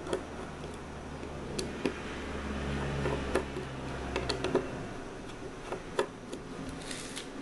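Small screwdriver turning a handle screw on an Enlan M07 folding knife: scattered light metallic clicks and ticks as the tip works in the screw head.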